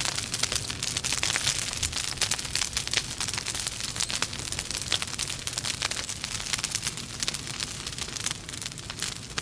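Burning logs in a fireplace crackling: a dense, irregular run of small pops and snaps over a steady hiss.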